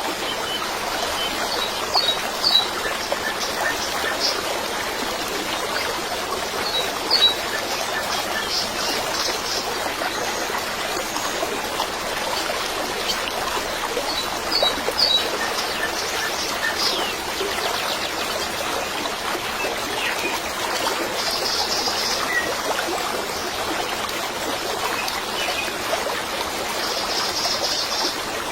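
Water trickling steadily like a running stream, with small birds chirping now and then over it.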